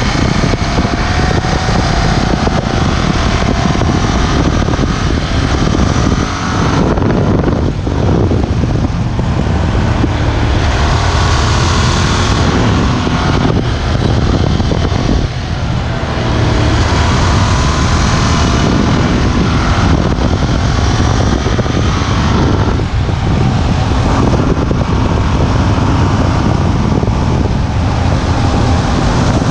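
Ducati Hypermotard 1100S's air-cooled L-twin engine running through its stock exhaust under way, with wind noise on the microphone. The sound dips briefly a couple of times, about a quarter and half way through.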